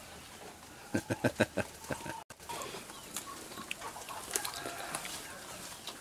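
Chickens clucking: a quick run of short clucks about a second in, then fainter scattered clucks.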